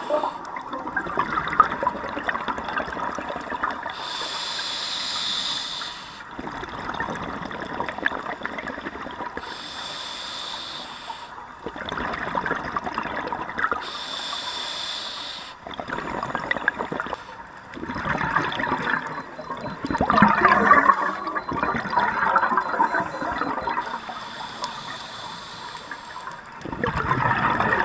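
Scuba diver breathing through a regulator underwater: four hissing inhalations, each followed by a longer bubbling exhalation, the loudest bubbling about twenty seconds in.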